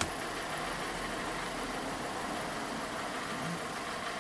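Volkswagen Polo 1.6 engine idling steadily, with one sharp click right at the start.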